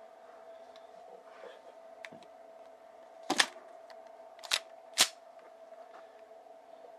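KJ Works Xcelerator gas blowback airsoft pistol firing three sharp shots, one about a second after the first and the last half a second later, each with the clack of the slide cycling, preceded by a faint click.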